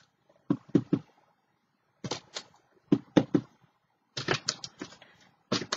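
A homemade stamp tapped down repeatedly, in quick clusters of two to four sharp taps.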